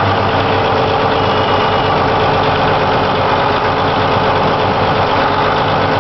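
Challenger track tractor's diesel engine idling steadily, heard from inside the cab.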